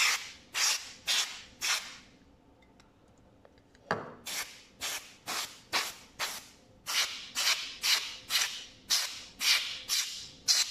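Can of compressed air sprayed in short hissing bursts, about two a second, to blow dust out of an opened laptop's fan and interior, with a pause of about two seconds near the start.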